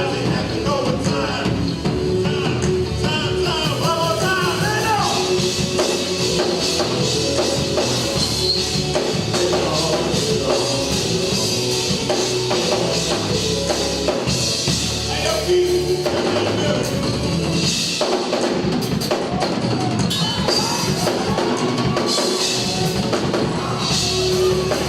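Live gospel praise music with a drum kit, a sustained keyboard tone and wavering vocal or instrumental lines.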